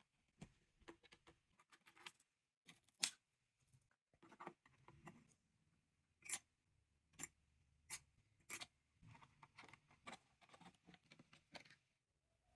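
Computer hardware being handled and fitted together: irregular sharp clicks and light taps, the loudest about three seconds in, with soft rustling between them.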